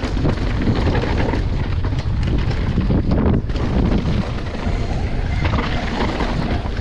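Wind rushing over the bike-mounted camera microphone, with the downhill mountain bike's tyres and frame rattling and clattering over a rough, rocky trail at speed.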